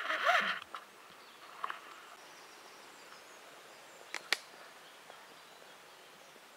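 Faint, steady outdoor background noise. A short burst of camera-handling noise comes at the very start as the camera swings round, and two sharp clicks come about four seconds in.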